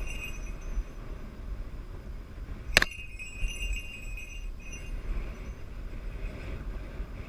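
Falconry bell on a red-tailed hawk's leg jingling as she flaps on the glove: one sharp jingle nearly three seconds in that rings on for a second or two, with fainter tinkling before and after. A low wind rumble on the microphone runs underneath.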